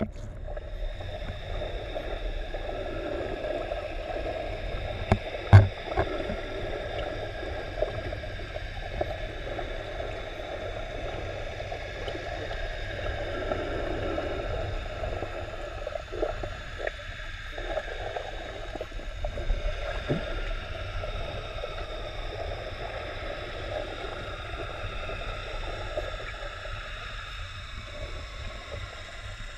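Underwater ambience picked up by a GoPro in its waterproof housing while snorkeling: a steady muffled wash of water noise with faint steady tones above it. A few knocks, the loudest a thump about five seconds in.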